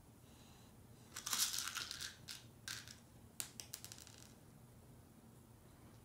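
A small child handling toys: a crinkling rustle about a second in lasting about a second, two short scrapes, then a quick run of light clicks.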